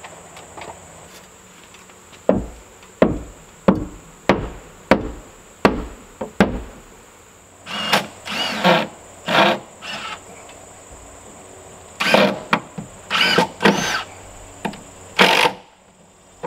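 Hammer driving a nail into wooden batten trim, about eight even blows at roughly one and a half a second, then a cordless drill/driver running in several short bursts as screws are driven into the board, its motor pitch rising and falling with each burst.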